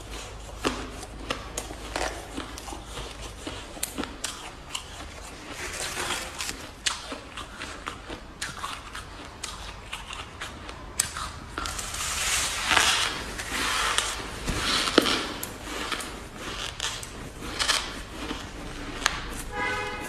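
Close-up crunching of freezer frost being bitten and chewed: a run of sharp crunches that gets denser and louder from about twelve to fifteen seconds in, with a short squeak near the end.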